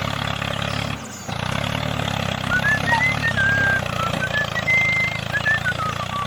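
A small engine on a DIY mini tractor running steadily, with a brief dip about a second in. From about halfway, a high whistled melody plays over it.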